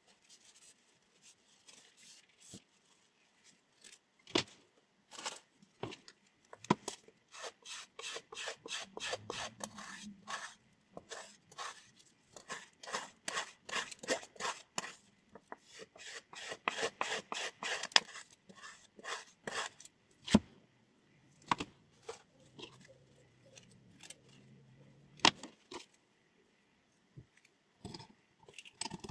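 A pair of scissors being worked, with rapid short metallic strokes of blade on blade or blade on stone, about three to four a second through the middle. A few sharp clicks stand out, and the strokes are sparse near the start and end.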